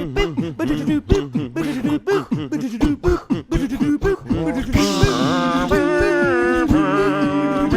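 A cappella vocal music: a beatboxed rhythm of short, choppy vocal sounds, then held vocal chords from a little past halfway.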